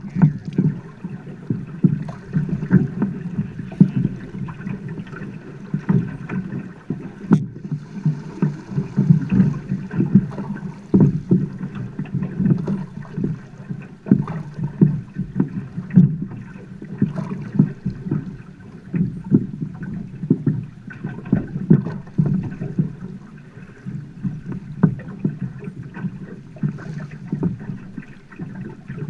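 River water slapping and gurgling against a boat's hull as it drifts down a fast river, with frequent irregular knocks and splashes.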